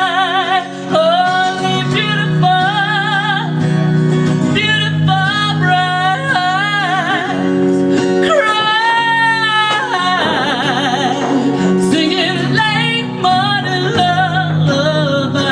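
A band playing a song: a singer holds long wavering notes over guitar accompaniment.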